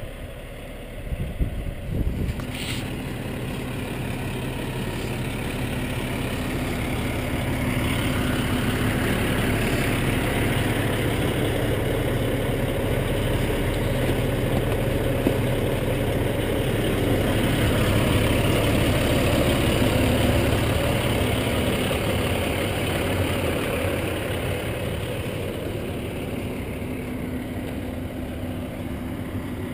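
Snowplow truck's engine running steadily, with a few knocks about a second in. The sound swells through the middle and eases again toward the end.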